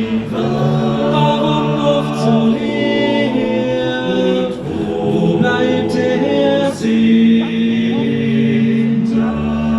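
A male vocal group singing in harmony, with several voices holding and changing chords and no clear words.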